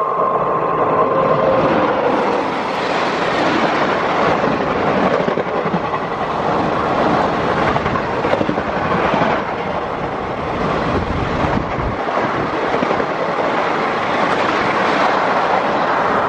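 Passenger express of ICF coaches hauled by a WAP4 electric locomotive running past at speed: a loud, steady running noise of steel wheels on the rails. A steady whine is heard in the first couple of seconds.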